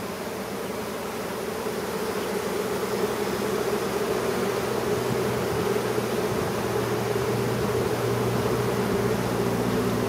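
A colony of honeybees buzzing over the open top frames of a hive, a steady hum that grows slowly louder over the first few seconds. The bees have been smoked and are calm.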